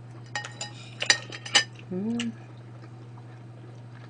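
Metal chopsticks clicking and scraping against a plate several times, followed by a short hummed "mm" from the person eating.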